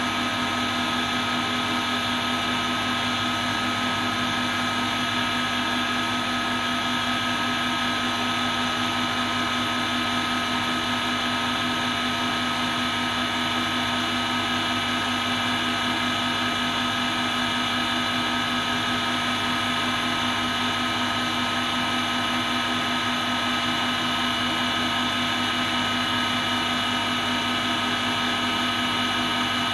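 3 hp three-phase induction motor running on a variable-frequency drive set at 50 Hz: a steady motor hum with several constant whining tones above it, unchanging throughout.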